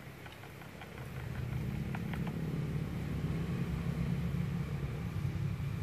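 A motor engine running steadily with a low hum that grows louder about a second in and then holds, with a few faint ticks early on.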